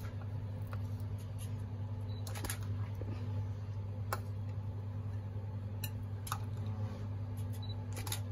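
Steady low hum of kitchen equipment, with a few light clicks and taps of a metal spoon against a ceramic bowl and plate as raspberries are placed one by one.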